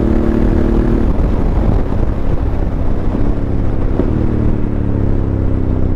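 Honda CRF1100L Africa Twin's parallel-twin engine running through a Fuel aftermarket exhaust, heard from a helmet microphone with wind noise. The engine note holds steady, breaks off about a second in, then comes back and sinks slowly lower as the bike eases its pace.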